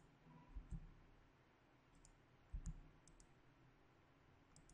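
Faint computer mouse clicks: several sharp little ticks scattered over quiet room tone, with a few soft low thumps about half a second in and again past the middle, as copied cabinet groups are placed in the modelling program.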